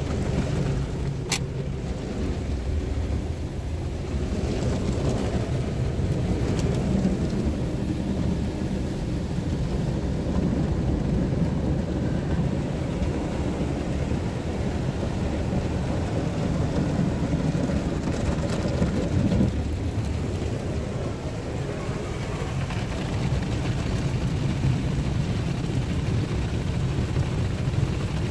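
Ryko SoftGloss XS rollover car wash's spinning cloth brushes scrubbing and slapping across the car along with water spray, heard from inside the car's cabin as a steady low rumble. A single sharp click sounds about a second in.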